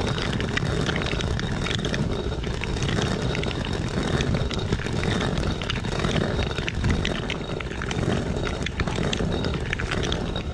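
Hand-turned stone quern (chakki) grinding black gram: the upper stone rumbles steadily round on the lower one, and the grains crack between them in a stream of small crackles.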